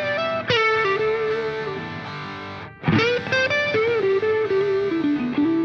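Background music: a distorted electric guitar playing a lead melody of held, bent notes in two phrases, with a short break and a sliding entry about three seconds in.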